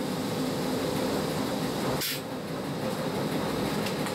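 Historic SBB BDe 4/4 electric motor coach running steadily uphill, heard from inside its driver's cab: a continuous low hum and rumble of motors and wheels on the rails. A brief hiss comes about two seconds in.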